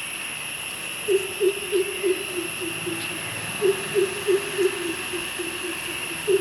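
A bird calling a rapid series of deep hoots, about three a second, in two phrases that each sink slightly in pitch. Underneath is a steady high insect drone.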